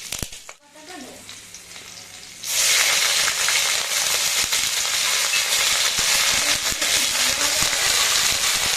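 Hot oil in a pan, tempered with mustard seeds: quiet with a few crackles at first, then about two and a half seconds in, something is added and the oil breaks into a loud, steady sizzle.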